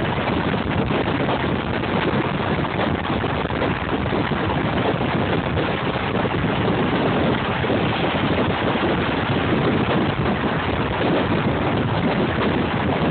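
Steady rushing wind on the microphone mixed with road and engine noise from an open-top BMW 320i convertible cruising through a road tunnel.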